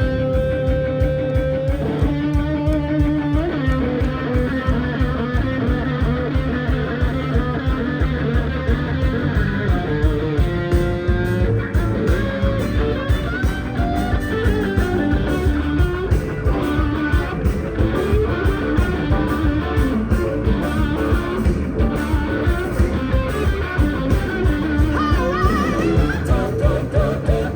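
Live rock band playing a guitar-led instrumental passage: electric guitar over bass and a steady drum beat, with no vocals.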